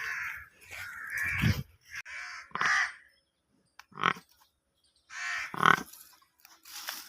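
A series of short, harsh animal calls in quick succession, broken by a couple of brief silent gaps.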